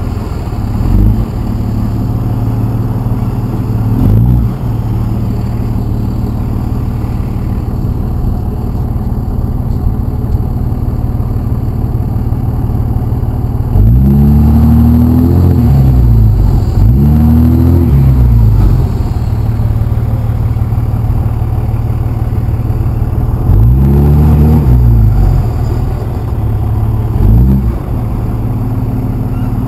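Dodge pickup truck's engine running with a loud steady rumble and revved up and let back down several times: quick blips about one and four seconds in, two longer revs around the middle, and two more in the last six seconds.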